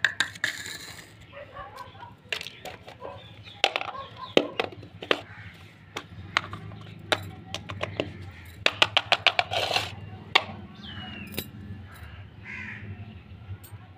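Small plastic toy kitchen pieces being handled and set down on a stone floor: scattered sharp clicks and taps, with a quick run of clicks about nine seconds in.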